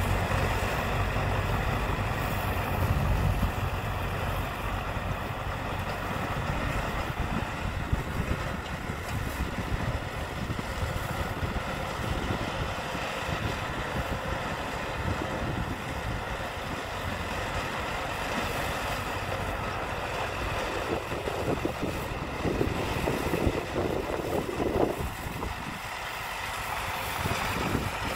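Small crawler bulldozer's diesel engine running as the dozer pushes a load of loose soil, with a heavier low hum in the first few seconds.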